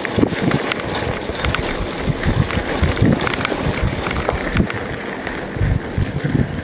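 Wind buffeting the microphone of a camera riding on a moving mountain bike, over the rolling noise of its tyres on a dirt trail, with scattered light clicks and rattles from the bike.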